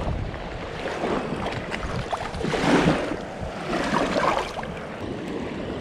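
Shallow river water splashing at the shoreline as a small catfish is let go by hand, with two louder splashy swells about two and a half and four seconds in, over lapping water and wind on the microphone.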